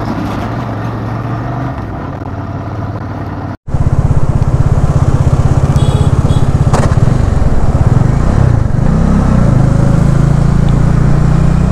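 Motorcycle engine running on the move. The sound cuts out suddenly about a third of the way in and comes back louder and closer, and the engine note rises and dips once about two-thirds of the way through.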